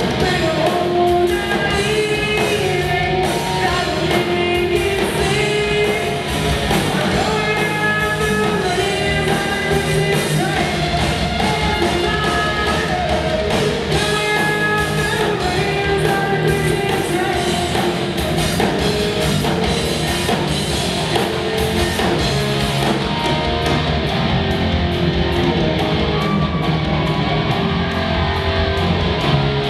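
Live rock band playing loud in a large hall: distorted electric guitars, bass guitar and drums, with a melody line running over them.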